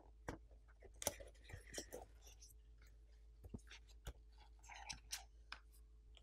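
Faint handling noises from unboxing: scattered light clicks and short rustles as a foam insert is lifted out of a cardboard box by its ribbon tab and a paper leaflet is moved.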